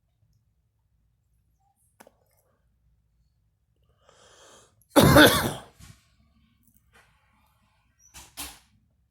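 A person coughing: a breath in, then one loud cough about five seconds in, followed by two smaller coughs close together near the end.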